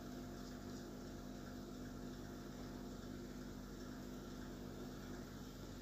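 Quiet, steady low hum and hiss of room tone, with no distinct handling noises.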